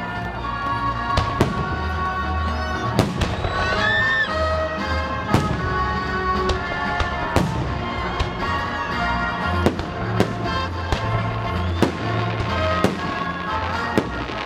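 Fireworks salute shells bursting, a dozen or so sharp bangs spaced irregularly about a second apart, over music playing throughout.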